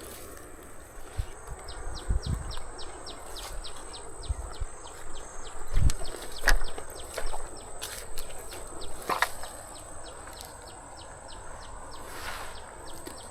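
Outdoor ambience: a steady high insect whine, with a quick, regular high ticking call about five times a second, broken by a few knocks and low bumps.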